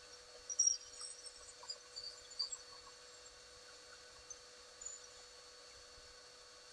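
Abrasive pad rubbed along a metal pen-lathe mandrel, giving short high squeaks and scratches in the first few seconds and once more near the end, over a steady faint hum.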